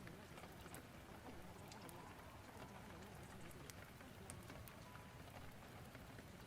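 Faint, steady rain-storm ambience: an even hiss of rain with scattered small ticks of drops or fire crackle.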